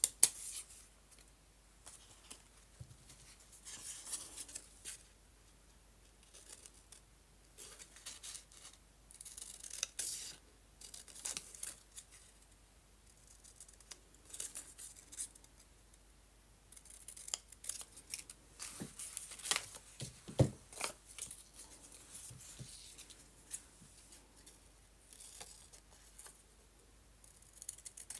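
Scissors cutting paper in short, irregular snips, with paper rustling as it is handled and a couple of sharper knocks.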